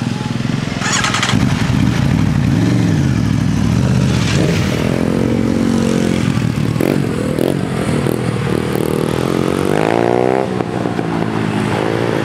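Queued road traffic pulling away as the crossing barriers lift: a motorcycle engine accelerating, rising in pitch about ten seconds in and again near the end, over the engines and tyres of cars moving off.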